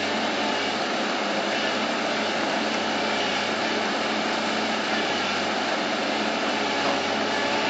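Bulldozer's diesel engine running steadily, a low hum under an even, noisy hiss.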